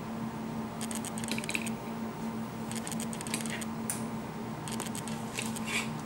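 Metal fork tines pressed along the edges of puff pastry on a wooden cutting board, crimping them shut: short runs of light clicks and scrapes, four or so clusters, over a steady low hum.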